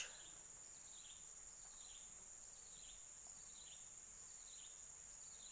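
Faint steady high-pitched insect drone of crickets, with a faint short chirp repeating about once a second.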